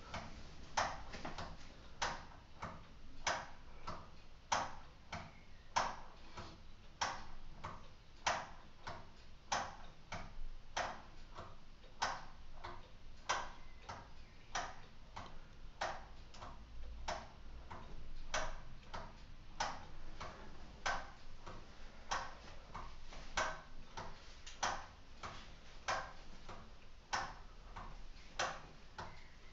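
Escapement of a purely mechanical LEGO Technic cuckoo clock ticking, its movement driven by a wind-up motor. The clicks are uneven, a louder tick about every second and a quarter with fainter ticks between.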